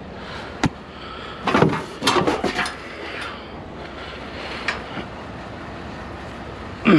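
A discarded curbside item with a steel base being handled and lifted: a sharp click, then a short run of knocks and rattles about a second and a half in, over a steady background hum.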